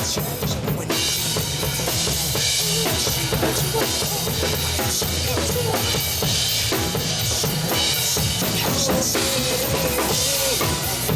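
Instrumental break of a Mandarin pop song: a drum kit keeps a steady beat under bass and a melody line, with no singing.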